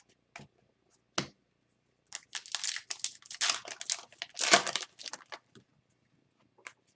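A foil wrapper of an Upper Deck hockey card pack crinkling and tearing, in a run of rustling bursts lasting about three seconds, after a couple of light clicks.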